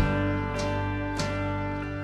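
Live worship band music between sung lines: held keyboard chords over a steady bass note, with strummed electric guitar and a drum hit at the start.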